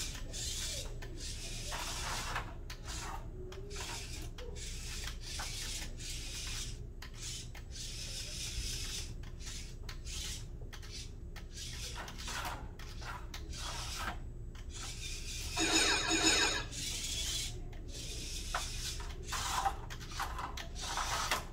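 A VEX IQ robot's motors and plastic parts scraping and rubbing in short, irregular bursts as it drives over the field tiles and handles plastic risers. About three quarters of the way through there is a louder, briefer stretch with a pitched whine.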